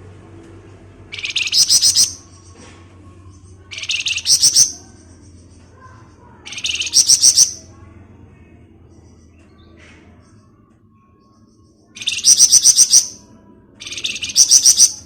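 Flamboyan songbird singing its rapid rattling 'ngebren' trill: five high-pitched bursts of about a second each, every one a quick run of notes, separated by pauses of one to two seconds, with a longer gap in the middle.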